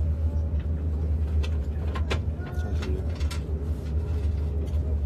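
Passenger train carriage interior: the steady low rumble of the train running, with a few sharp clicks and rattles about two and three seconds in.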